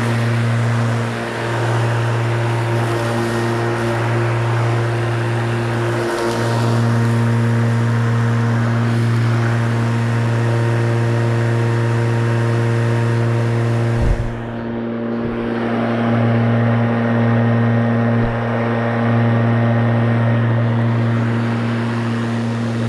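Spear & Jackson 40V cordless rotary lawnmower running as it cuts grass: a steady electric motor and blade hum, dipping briefly now and then. A single thump about fourteen seconds in.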